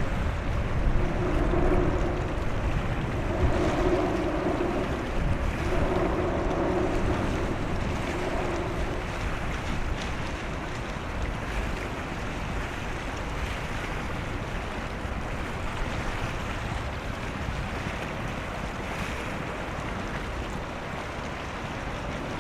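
Wind buffeting the microphone over washing water, with a low hum that swells and fades about four times in the first nine seconds. The whole sound slowly eases off.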